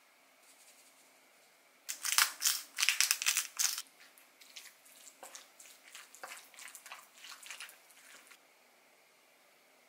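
Wooden spatula stirring and mashing cubed boiled potatoes with mayonnaise in a glass bowl: wet crushing, squishing strokes, loudest for about two seconds starting two seconds in, then softer uneven strokes that stop about eight seconds in.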